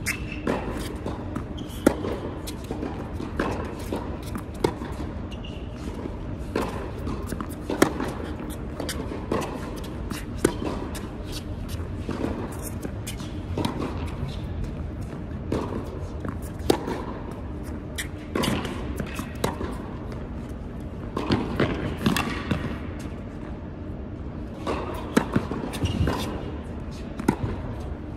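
Tennis rally on an indoor hard court: sharp pops of the ball struck by racquets and bouncing, about every one to two seconds, echoing in the hall.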